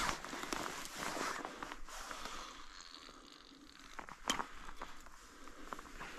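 Dry grass rustling and crunching under hands as a fish is handled and unhooked with pliers, with many small crackles and one sharp click about four seconds in.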